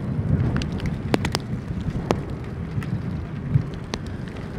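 Gusty storm wind rumbling on the microphone, with scattered sharp ticks spread through it.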